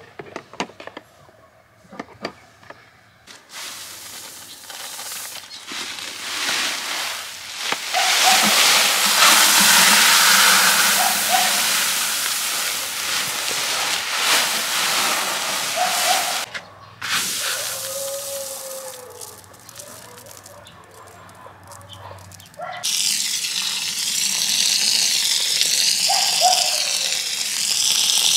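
A few light clicks of eggs set into a plastic bowl, then a steady rush of dry rice grain poured from a woven sack into a plastic bucket. From about 23 seconds in, the loud hiss of water spraying from a garden-hose nozzle onto the rice in the bucket.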